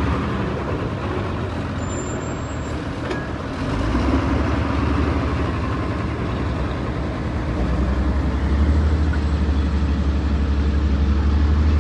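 Heavy diesel engines of a wheel loader and a dump truck running, a steady deep hum with a rougher noise over it, growing louder about four and again about eight seconds in.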